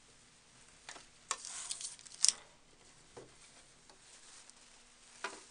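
Stretch fabric and tulle rustling as they are handled and fed under a sewing machine's presser foot, with a few light clicks and one sharp click about two seconds in.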